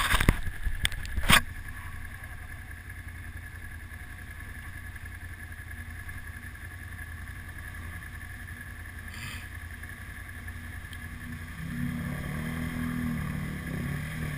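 Snorkelled ATV engine idling steadily while stopped in water, with a few sharp knocks in the first second and a half. Near the end a second ATV's engine grows louder as it approaches through the water.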